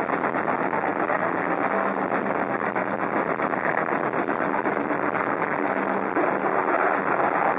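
Metal band playing live at full volume: distorted guitars, bass and drums merge into a dense, steady wall of sound.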